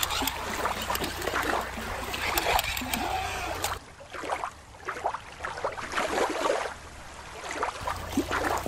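Shallow water splashing and trickling as toys are moved through it. For a few seconds in the middle a quieter, different background takes over.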